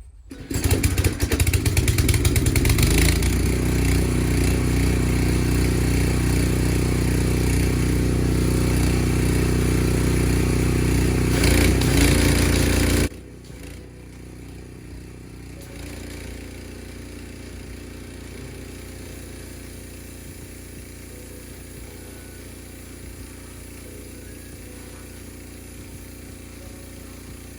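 Pressure washer running with its turbo nozzle blasting the patio: a loud, steady engine-driven spray that starts about half a second in. About 13 seconds in it drops suddenly to a much quieter steady run.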